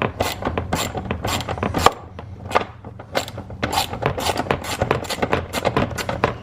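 Repeated rasping scrapes and clicks of hands and tools working loose the last rear fastener on a Ram 1500's air filter housing cover, over a steady low hum.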